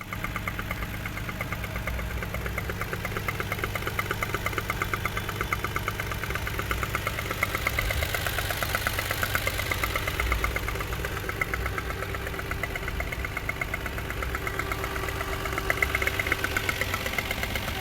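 Toyota 1JZ-GE 2.5-litre inline-six engine running at idle with a fast, regular knock that keeps pace with the engine. The owner calls it a knock in the engine.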